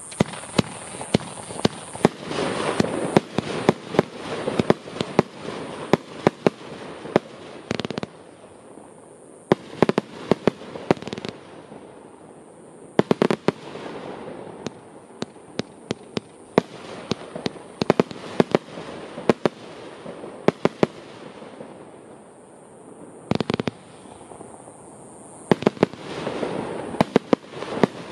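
Vivid Pyrotechnics Gold Fever, a 75-shot 30 mm compound firework cake, firing: rapid volleys of sharp bangs as the tubes launch and the shells burst. It starts at once and goes in waves, with short lulls about eight, twelve and twenty-two seconds in.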